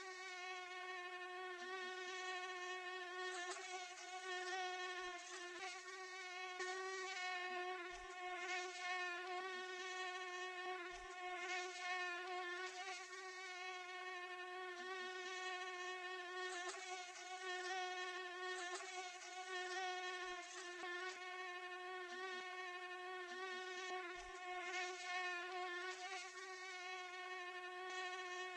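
A mosquito's high-pitched wing buzz, a continuous whine that wavers slightly in pitch and loudness.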